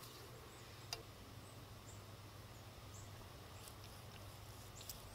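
Very quiet outdoor background: a few faint, short bird chirps over a low steady hum, with one light tap about a second in as the carving knife meets the wooden cutting board.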